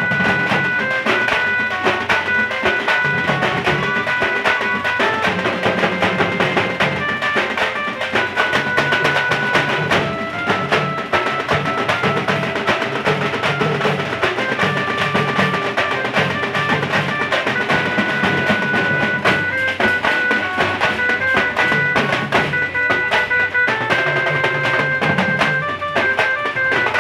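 Street drum band playing a fast, dense rhythm without a break: large double-headed drums struck with sticks, a slung barrel drum and conga-style drums. A melody of held notes that step from pitch to pitch sounds over the drumming.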